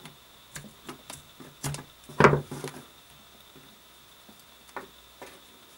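Scissors snipping through nylon paracord, with a scattering of short clicks and handling noises. The loudest snip or knock comes about two seconds in, and a few fainter clicks follow near the end.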